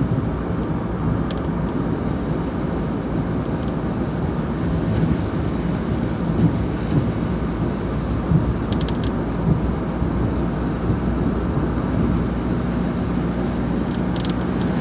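Steady road noise of a car driving on a wet highway, heard from inside the car: tyre noise on wet pavement over a low engine hum.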